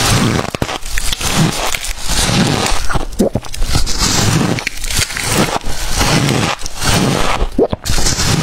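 Close-miked crunching of freezer frost being bitten and chewed, a fresh crunch about once a second.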